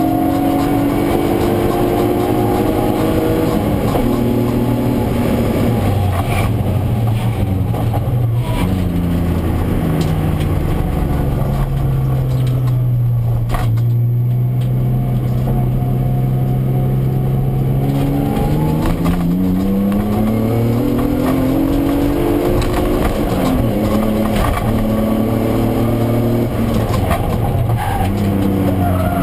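BMW E36 323ti's 2.5-litre straight-six heard from inside the cabin while driven hard: the revs drop over the first few seconds, hold low and steady through the middle, then climb again after about 18 seconds and rise and fall near the end.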